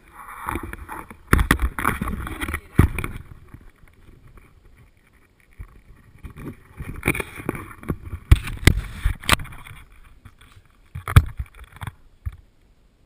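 Wind noise and rustling on an action camera's microphone, broken by loud, irregular knocks and thumps as the camera is handled and set down.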